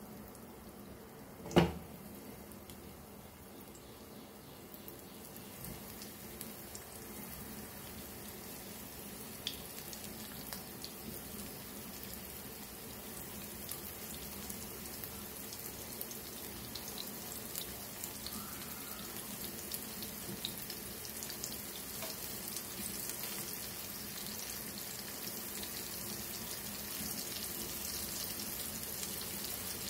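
Rava-coated prawns shallow-frying in hot oil in a pan: a steady sizzle with scattered small crackles, growing louder as more prawns go in. A single sharp knock about a second and a half in.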